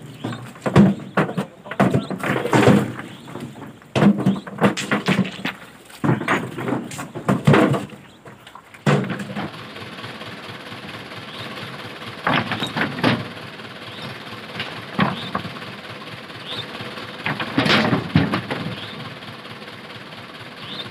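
Rocks knocking and clunking as river stones are loaded by hand onto a dump truck's steel bed, many sharp knocks close together. After a cut, a steady rushing noise carries on under a few scattered stone knocks.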